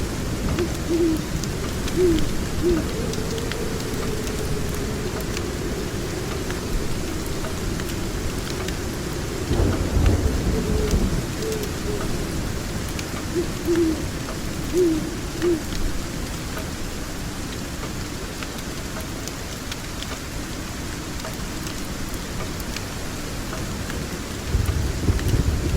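Steady rain with thunder rumbling about ten seconds in and again near the end. A few short low hoots, like an owl's, and the faint crackle of a fire.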